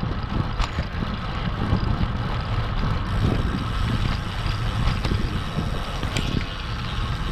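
Wind buffeting the microphone of a handlebar-mounted camera on a moving road bike, with a steady low rumble of tyres on the pavement and a few faint clicks.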